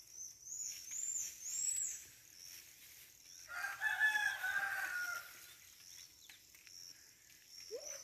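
A rooster crowing once, a call of nearly two seconds about midway. Faint, high, repeated chirps sound in the first two seconds.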